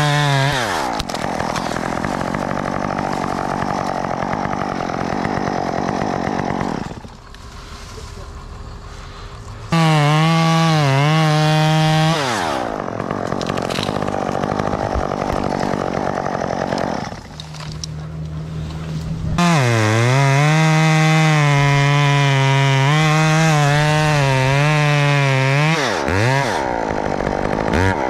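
Top-handle chainsaw cutting oak limbs, held at full throttle in three long runs whose pitch wavers as the chain loads in the wood, dropping back to idle between cuts.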